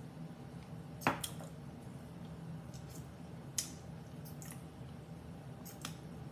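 Green salsa dripping from a bottle onto a hard taco shell, with faint crackles as the shell is handled: three sharp wet drops, the loudest about a second in.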